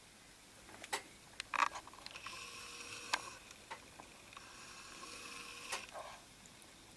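Camcorder zoom motor whining faintly twice, as the lens zooms in and then back out, with a few soft clicks between.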